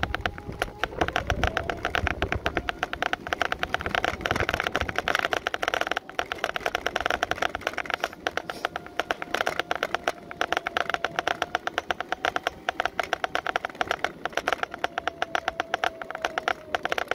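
Scooter motor whining as it rides along: the pitch rises about a second in as it picks up speed, holds steady, then drops near the end as it slows. Under it runs a fast, constant rattling clatter from the scooter jolting over the road.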